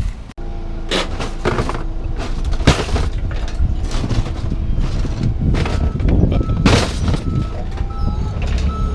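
Scrap steel clanging and banging as it is handled, over a running engine. From about halfway, a vehicle's reversing alarm beeps steadily.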